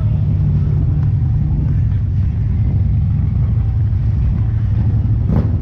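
Harley-Davidson V-twin motorcycle engine running steadily while the bike rides along at street speed.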